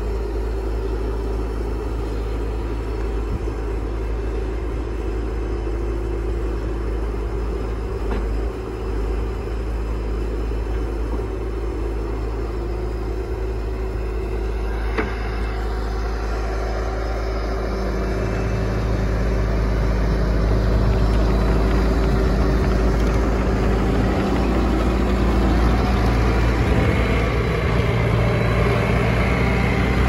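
2014 Bobcat T770 compact track loader's diesel engine running steadily. It grows louder about two-thirds of the way through, with a single click near the middle.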